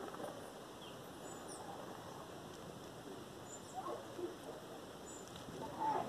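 Faint outdoor ambience with scattered bird calls. There are a few brief high chirps, and lower wavering calls come about two-thirds of the way in and again, loudest, just at the end.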